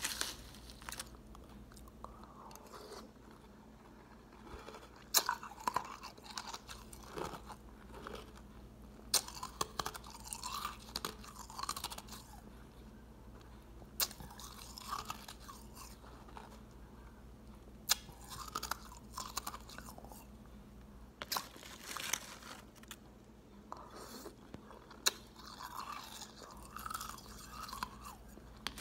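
A person biting into ice and chewing it close to the microphone. There is a sharp crack every four seconds or so, each followed by a run of crunches.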